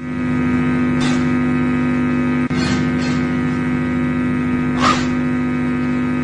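Electric guitar amplifier hum: a loud, steady electrical buzz with many overtones, the rig's own noise with no notes played. Brief scratchy noises come over it about 1, 3 and 5 seconds in.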